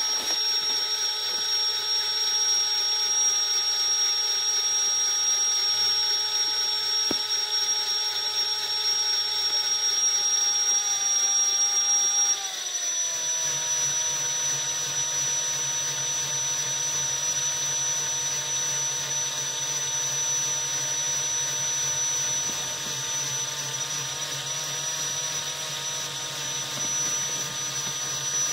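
Electric motor whirring steadily with several held tones, which slide down in pitch together about twelve seconds in as the motor slows, then run on steady and slightly quieter.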